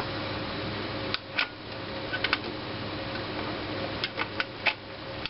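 Plastic push-buttons on the MSI AirForce drive-bay control panel clicking as they are pressed, about eight sharp clicks in small groups, over the steady hum of the computer's fans.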